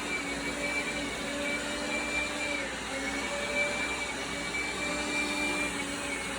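Dreame Bot L10 Pro robot vacuum running, a steady suction-fan whir with a high whine that dips slightly in pitch twice.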